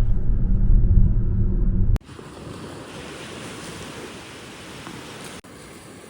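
Low road rumble inside a moving car for about two seconds. It cuts off abruptly to quieter ocean surf, with wind on the microphone.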